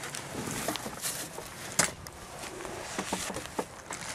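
Scattered airsoft gunfire: isolated sharp cracks, one louder one about two seconds in and a small cluster around the three-second mark.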